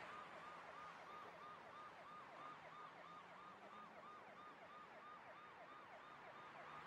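Faint warbling siren-like tone, rising and falling quickly about three and a half times a second at a steady pitch range.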